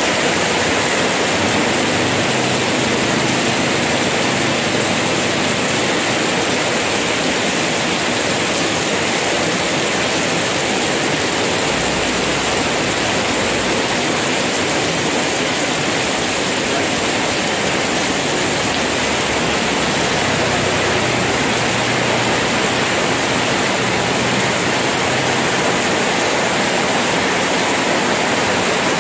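Heavy rain pouring down on a wet paved street, a dense steady hiss of drops splashing on the road and puddles.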